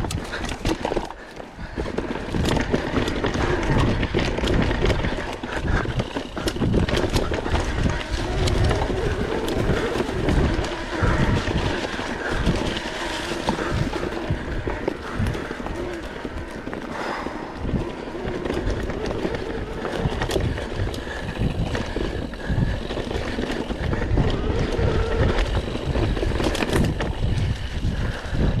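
Mountain bike ridden over a rough forest trail: continuous rumble with many knocks and rattles from the tyres and frame over rocks and roots.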